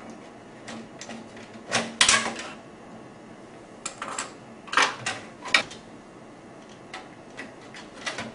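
Plastic top cover of an HP LaserJet 1320 printer clicking and knocking against the chassis as it is unclipped and lifted off: a string of sharp clacks, the loudest about two seconds in, more around four to six seconds, and a few lighter clicks near the end.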